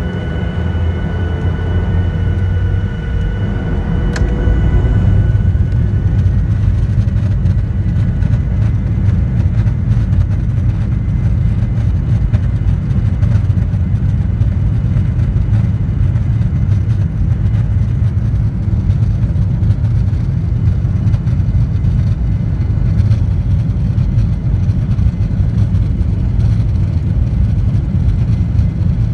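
Boeing 737-900ER's CFM56-7B engines heard from the cabin over the wing, their whine rising as they spool up about four seconds in, then a steady loud rush and low rumble as the jet accelerates, typical of the start of a takeoff roll.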